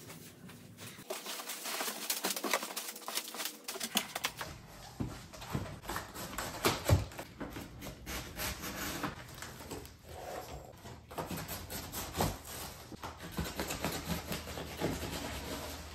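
Crinkling and rustling of plastic wrap and packing paper, with cardboard box flaps scraping, as a large shipping box is unpacked by hand. There is an occasional sharper knock, the loudest about seven seconds in.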